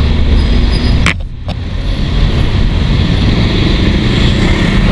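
Yamaha Mio Sporty scooter and surrounding traffic in a steady low rumble. About a second in there is a sharp click and a brief drop in level, then the rumble resumes.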